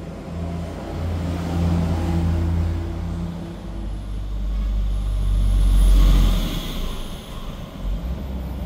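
A vehicle engine running, a steady low hum that swells to its loudest about six seconds in, with a hiss at the peak, and then eases off.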